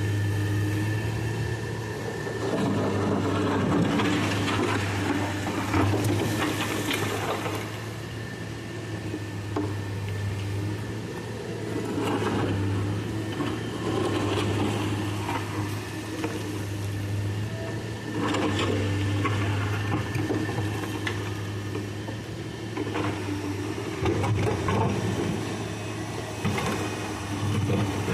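Excavator's diesel engine running steadily under hydraulic work, with irregular scraping and knocks over it.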